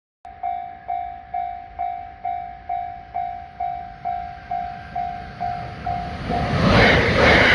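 Japanese railway level-crossing warning bell ringing with a steady two-strike-a-second clang. About six and a half seconds in, a passing train's rumble rises and covers it.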